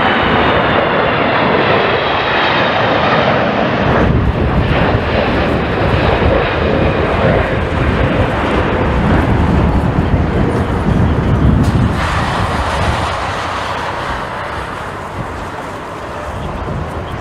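Jet airliner's engines going by on approach: a high turbofan whine with slightly falling pitch, giving way after about four seconds to a loud, choppy low rumble that slowly fades.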